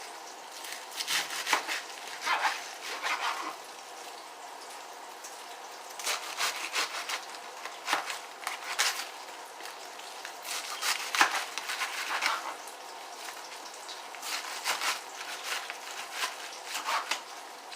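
Knife cutting through a head of raw cabbage on a cutting board: irregular crunching cuts and knocks of the blade against the board, coming in clusters with short pauses between.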